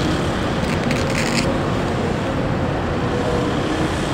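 Steady road traffic noise as a truck and cars drive past on the street.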